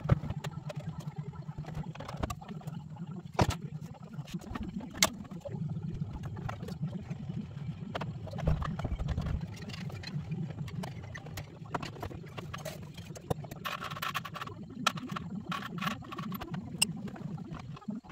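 Scattered clicks, knocks and rattles of plastic dash trim and hand tools being handled during work under a van's dashboard, with a few louder knocks, over a steady low hum.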